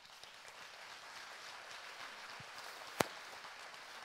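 Audience applauding, with a single sharp click about three seconds in.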